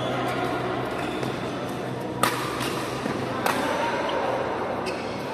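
Badminton rackets striking the shuttlecock in a doubles rally: two sharp hits about a second and a quarter apart, the first the loudest, with a few fainter clicks near the end.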